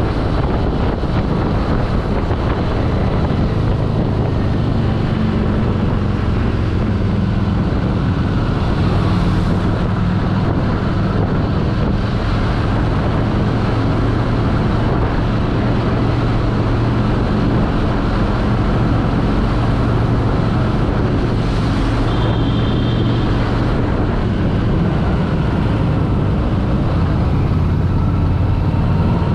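Harley-Davidson Street 750's liquid-cooled V-twin engine running steadily at low speed in slow traffic, a low engine note under wind noise on the microphone.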